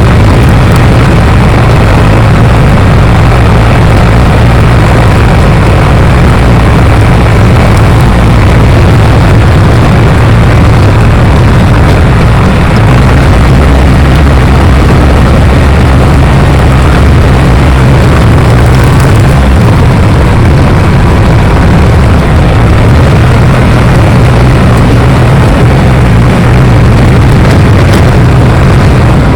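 Bulldozer's diesel engine running loud and steady, its low engine note shifting a couple of times.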